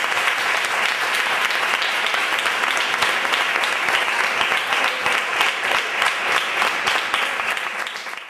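Audience applauding: a steady round of many hands clapping that tapers off slightly near the end.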